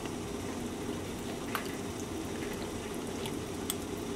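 Pot of soup bubbling steadily as a wooden spoon stirs through the chunky vegetables, with a couple of light knocks of the spoon against the pot.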